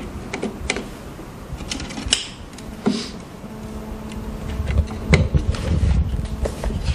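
Small plastic clicks and rustles of wire connectors being pushed onto the terminals of a heat press's control circuit board, irregular and a few each second, with low handling thumps from about halfway through.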